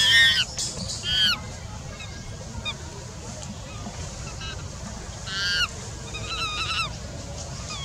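A series of short, high-pitched animal calls, each rising then falling in pitch. The loudest come at the start and about a second in, another about five and a half seconds in, and then a quicker run of calls, all over a steady low rumble.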